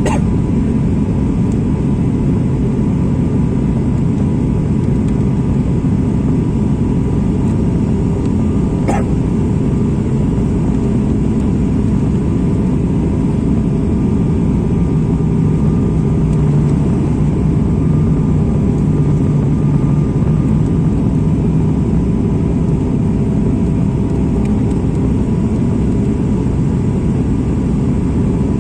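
Steady airliner cabin noise: a low rumble of engines and airflow with a faint hum that swells for a few seconds midway. A brief click about nine seconds in.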